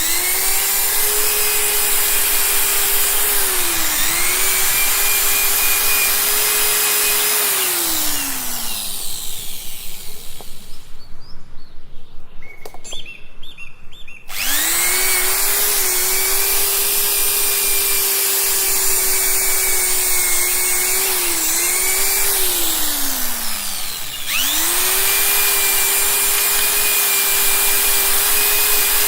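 A high-speed electric power tool run in three bursts. Each time its motor spins up quickly to a steady whine, dips briefly as it bites into the work, then winds down with a falling pitch when released. Between the first two runs there is a quieter stretch of rhythmic noise.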